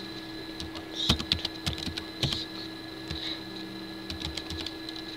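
Typing on a computer keyboard: a quick run of key clicks about a second in, then a few scattered taps, over a steady faint electrical hum and whine.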